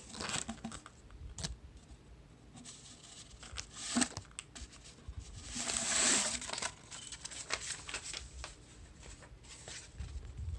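Plastic and cardboard packaging being handled: plastic wrap crinkling and rustling, with a few sharp taps and clicks and a longer rustle about six seconds in.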